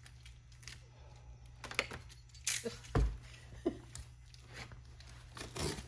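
Boxes and packaging being handled: scattered knocks and clicks with light rustling, the loudest a dull thump about three seconds in.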